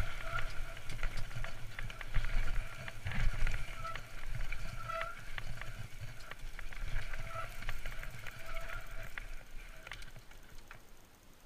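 Trek Fuel EX 8 full-suspension mountain bike riding fast down a rough dirt trail: tyres on dirt, the bike clattering and rattling over bumps, and wind rumble on the camera microphone. A faint tone comes and goes, and the noise dies away near the end.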